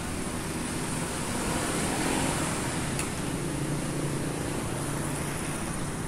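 Road traffic: motorcycles and cars passing close by on a street, a steady mix of engine hum and tyre noise.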